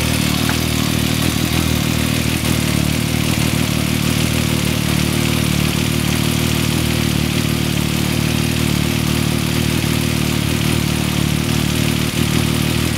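Yamaha MT-09's 847 cc three-cylinder engine idling steadily, with the clatter of a slack cam chain: its tensioner has been backed off.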